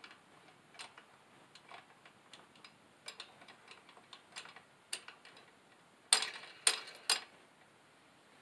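Small metal clicks and ticks as wing nuts are threaded onto the bolts of an HD TV antenna's metal mounting clamp and the clamp is fitted. The clicks come irregularly, with three louder ones about six to seven seconds in.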